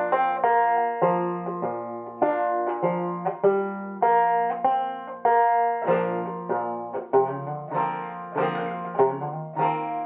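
Solo banjo played in clawhammer (frailing) style: a steady run of plucked notes with a brushed, rhythmic drive and no singing.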